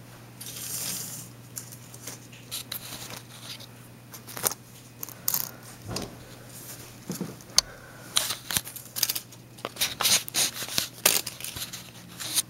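Dry snow crunching and scraping in short, irregular bursts, coming thickest about two-thirds of the way in, as the snow on a drift is worked by hand or foot. A faint low hum runs underneath.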